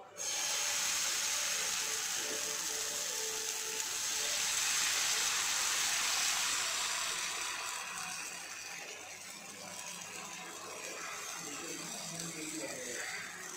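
Dosa batter sizzling on a hot oiled non-stick tawa as it is poured and spread with a ladle. The sizzle starts suddenly as the batter lands and eases off after about eight seconds.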